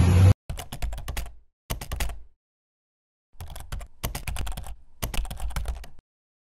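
Computer keyboard typing: several short runs of quick clicks with silent gaps between them, used as an end-card sound effect. Street traffic noise cuts off abruptly just at the start.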